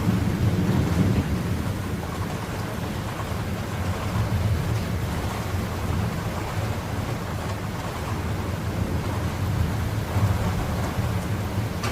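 Rolling thunder from a nearby thunderstorm, a continuous low rumble with a steady hiss above it and no sharp cracks.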